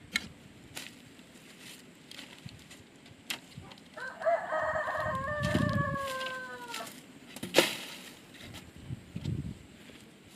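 A rooster crows once, a single call of about three seconds that drops in pitch at the end. A few sharp knocks sound around it, the loudest just after the crow.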